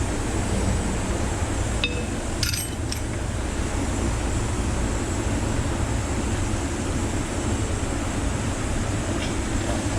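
Steady low rumbling background noise, with a few light metallic clinks about two seconds in as engine parts are handled.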